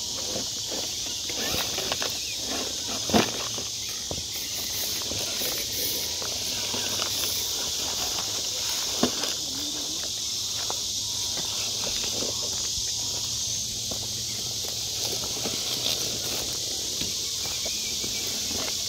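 Steady high-pitched chorus of night insects, with scattered clicks and knocks; the sharpest come about three seconds and nine seconds in.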